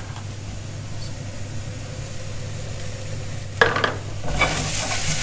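Brussels sprouts frying in a pan: a faint sizzle at first, then a utensil clatters against the pan about three and a half seconds in. After that the sizzling grows much louder as the sprouts are stirred.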